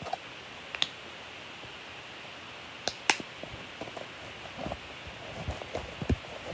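Small objects being handled and set down: scattered clicks, taps and light knocks, a few seconds apart at first and closer together near the end, over a steady hiss.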